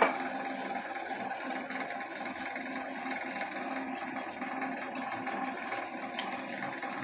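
Battered bread pakora deep-frying in hot oil in a kadhai, the oil sizzling steadily over a low steady hum. A metal spoon clicks against the pan right at the start and once more, more softly, about six seconds in.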